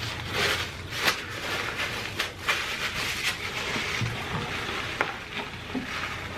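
Eating sounds: chewing with scattered mouth clicks and crackles.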